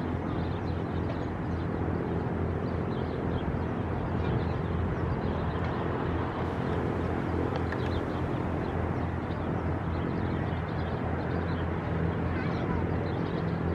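Steady, distant rumble of the Cessna 680 Citation Sovereign's twin turbofan engines on final approach with gear down. Faint high chirps run through it.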